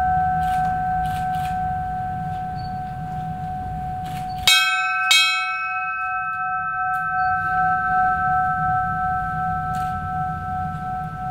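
Brass ship's bell hung on a stand, still ringing at first, then struck twice in quick succession about halfway through, its clear tone ringing on and slowly fading. It is tolled for a moment of silent prayer for the dead.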